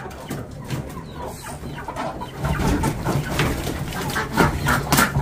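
Chickens clucking, amid scattered sharp clicks and knocks.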